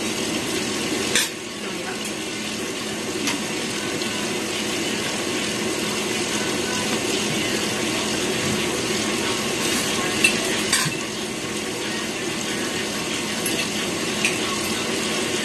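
Spoons and forks clinking and scraping on plates as people eat, a few sharp clicks scattered through, over a steady background hiss.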